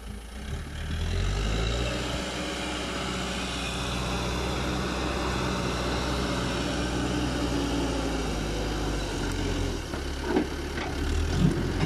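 Caterpillar 434E backhoe loader's diesel engine picking up about a second in and running steadily as the machine drives. Near the end, a few sharp knocks and clatters come as the front bucket pushes into a pile of stone curb blocks.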